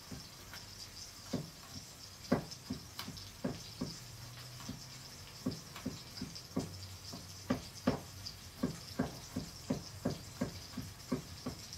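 Knife slicing garlic on a cutting board: a run of irregular taps of the blade on the board, coming faster in the second half, over a faint steady hiss.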